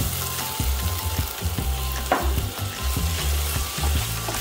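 Minced chicken with chili and garlic stir-frying in a nonstick pan, sizzling steadily as soy sauce goes in. A plastic spatula scrapes and knocks against the pan as it stirs.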